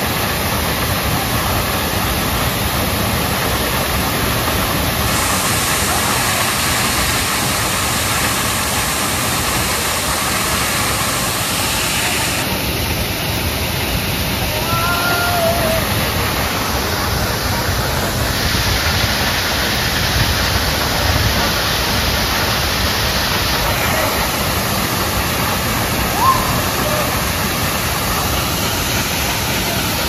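Waterfall pouring into its rock pool: a loud, steady rush of falling water that never lets up. A few brief distant shouts sound faintly over it midway and near the end.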